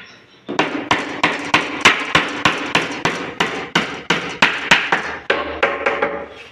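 Hammer blows in a quick, even rhythm, about three a second, starting about half a second in.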